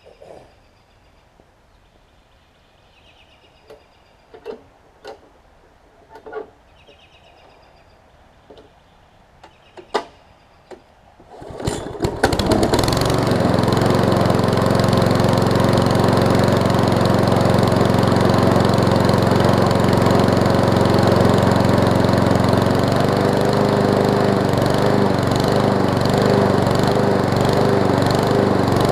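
A few scattered knocks, then about twelve seconds in a Briggs & Stratton Quantum single-cylinder mower engine starts and keeps running steadily at fixed throttle.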